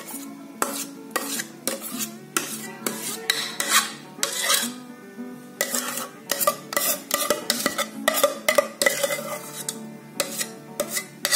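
Metal spoon scraping thick halwa out of a pan into a glass baking dish: repeated scrapes and clinks of the spoon on the pan. Background music with held notes plays underneath.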